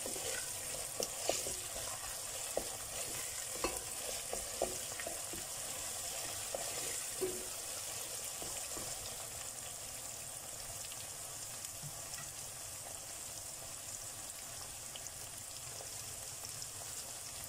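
Onion, minced meat and pepper and tomato paste sizzling steadily in hot oil in a pot while the paste is fried off. A wooden spoon stirring knocks and scrapes against the pot now and then in the first half; after that there is only the sizzle.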